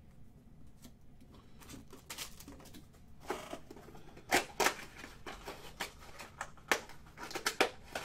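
Trading cards and plastic card holders being handled on a table: faint rustling, then irregular clicks, taps and crackles, busier from about three seconds in.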